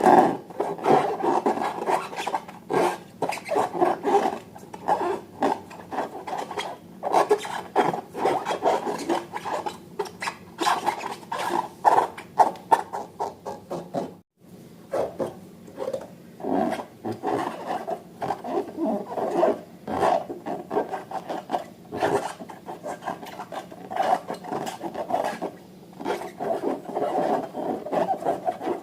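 Rubbing and scraping with many small clicks and crackles, as balloons and slime are handled and worked by hand. The sound cuts out briefly about halfway through.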